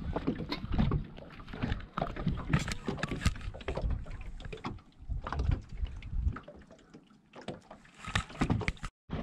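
Irregular knocks and handling noise on a fishing boat, over water moving against the hull.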